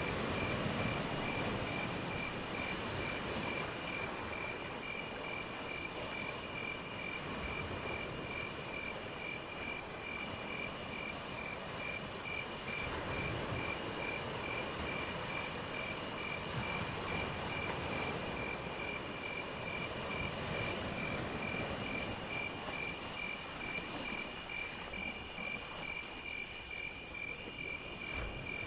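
Insects calling: a steady high trill, with a higher buzz that switches on and off in phrases about two seconds long, repeating every two and a half seconds. Under them is a steady low background rumble.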